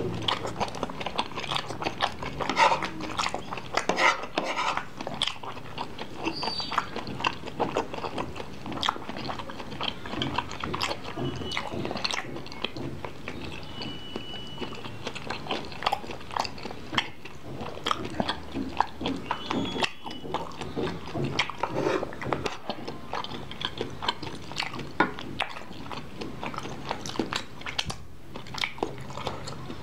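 Close-miked chewing of bakso meatballs, with many short mouth clicks and smacks throughout.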